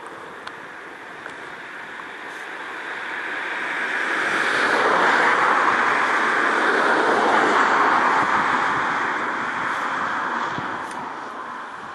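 Avro Vulcan XH558's four Rolls-Royce Olympus turbojets, jet noise growing louder as the bomber approaches, loudest about halfway through, then fading.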